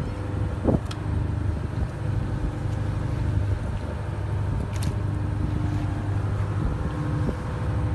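Steady low drone of a steel-hulled fishing boat's engine running, with a few short knocks and clicks on deck, one about a second in and one about five seconds in.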